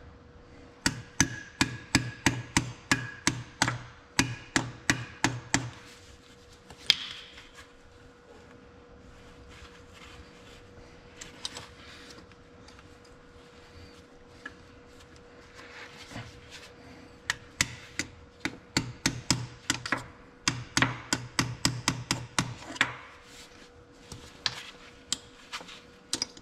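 Ball-peen hammer tapping a steel seal remover tool in under a tight brake seal: two runs of quick, sharp metal taps, about three a second, separated by several seconds of light clicking as the tool is repositioned.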